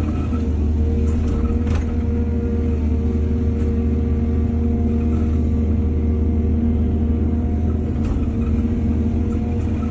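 Heavy diesel engine of earthmoving machinery running steadily at a constant pitch, with a few light knocks over it.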